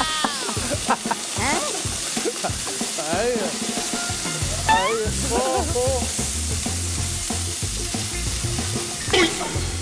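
Steady rushing hiss of an air blower blasting shredded silver paper out of a vent, the paper fluttering and rustling as it flies, with a few short shouts over it.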